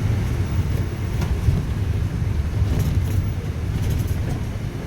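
Steady low engine rumble of a vehicle heard from on board during the ride, with a few faint clicks and rattles.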